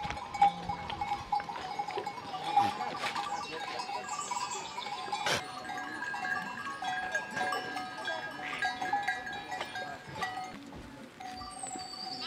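Bells on a flock of goats and sheep ringing and clinking, with an occasional bleat.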